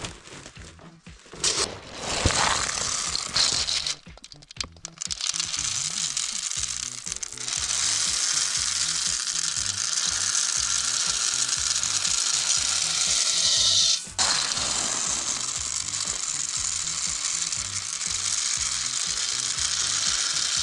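Dried soybeans pouring in a steady rattling stream from a perforated stainless steel colander into a sack, in several long pours with a short break about 14 s in. Background music plays underneath.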